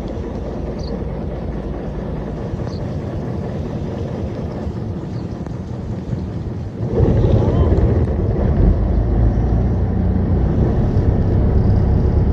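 An engine running steadily, with wind noise; about seven seconds in it gets suddenly louder and deeper and stays there.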